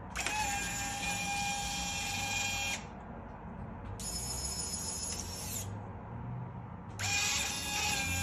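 Electric motor and gearbox of a Traxxas Ultimate RC Hauler 6x6 truck whining in three bursts of a couple of seconds each as it drives back and forth; the second burst drops in pitch as the truck slows.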